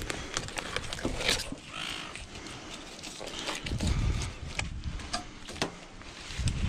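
Knife filleting a large goldband snapper on a metal table: wet cutting and scraping with many small clicks as the blade works along the ribs. Dull low bumps come about four seconds in and again near the end.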